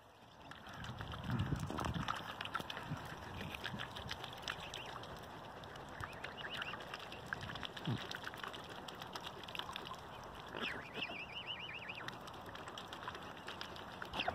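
Mute swans and cygnets dabbling and feeding in shallow water: irregular wet clicks of bills and small splashes throughout. About eleven seconds in, a short, high, wavering twitter of bird calls.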